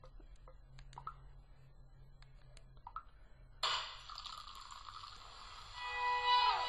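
A few faint, irregular soft clicks, then about three and a half seconds in a song starts abruptly from the laptop playing it through Boxee, growing louder toward the end.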